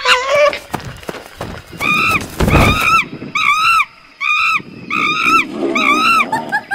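An animal calls loudly and repeatedly, about eight short arching calls about half a second apart. A brief low rushing burst comes between the first calls.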